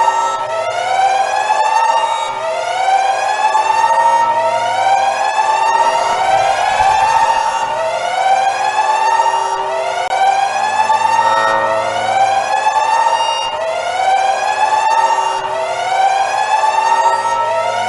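Emergency siren sounding a repeated rising whoop: each tone sweeps upward and snaps back down, about once every two seconds, steady throughout.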